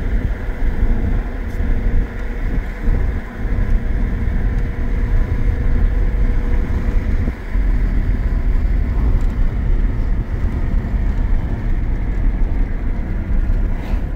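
Steady loud low rumble of a running road vehicle, with a faint steady hum that fades out about halfway through.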